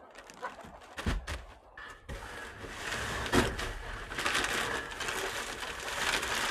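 Pine shavings being tipped out of a bag onto the coop floor: a few knocks and crinkles of handling the bag, then from about two seconds in a steady dry rustle of shavings spilling and scattering.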